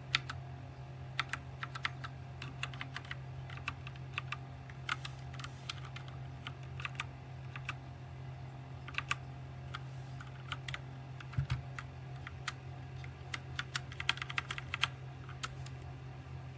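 Redragon K552 mechanical keyboard with linear red switches being typed on: irregular clacks of keystrokes coming in quick clusters. A steady low hum runs underneath.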